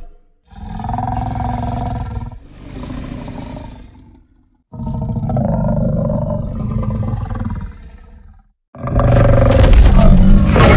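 Spinosaurus roar sound effects: a run of deep, growling dinosaur roars. Two shorter calls, the second quieter, are followed by a longer one and then a louder roar that starts near the end.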